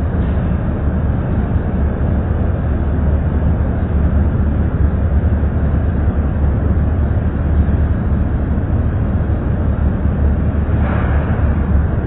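Steady, loud low rumble of running effluent-treatment-plant machinery, with a brief higher hiss joining near the end.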